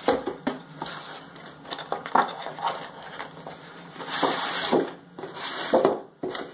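A product box being opened and its packaging handled: irregular rustling, scraping and small knocks, with a longer sliding scrape about four seconds in.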